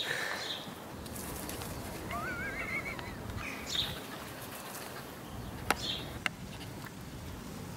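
A high, wavering animal whine rising in pitch about two seconds in, with two sharp clicks a little before the end.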